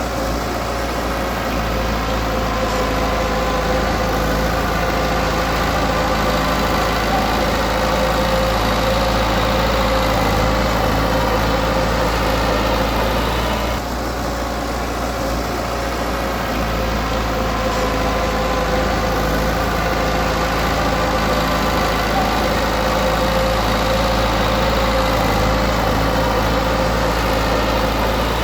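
Heavy-machinery diesel engine running steadily, with a droning tone, dipping briefly about halfway through before carrying on.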